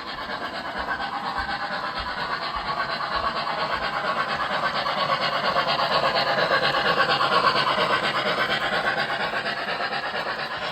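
O gauge model steam locomotive pulling passenger cars on a layout, its wheels rolling along the track with a fast, rhythmic clatter. It grows louder as the train comes closer, then eases off slightly near the end.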